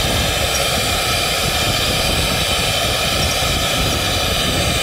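A CNC router's HQD 4.5 kW ER32 spindle running at speed, giving a steady, constant whine over an even hiss.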